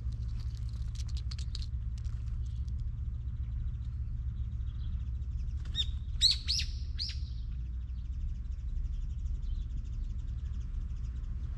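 Wild bird calling: faint high chirps about a second in, then a quick run of four sharp, falling chirps about six seconds in, over a steady low background rumble.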